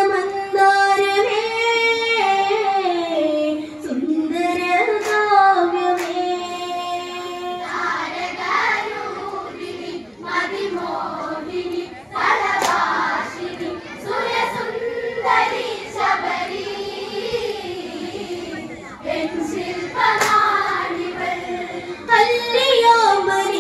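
A girl singing a Malayalam Onam kali folk song through a microphone and loudspeakers, with long held notes at first. A group of women's voices joins in later, with hand claps.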